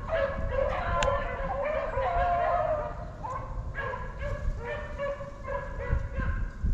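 A pack of beagles baying in overlapping, repeated calls as they run a freshly jumped rabbit on its scent trail.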